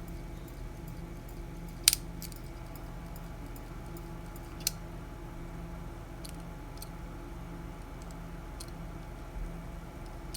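Battery wall clock movement running after a stuck part was freed: a faint steady hum with light intermittent ticking, and two sharper clicks about two seconds and four and a half seconds in.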